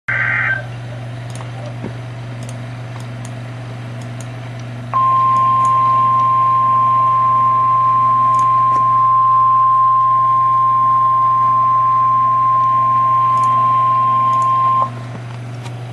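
NOAA Weather Radio warning alarm tone: a single steady 1050 Hz tone held for about ten seconds over radio hiss and a low hum. It comes in about five seconds in and cuts off near the end. The tone signals that a warning broadcast follows. A brief burst of digital header data tones sounds at the very start.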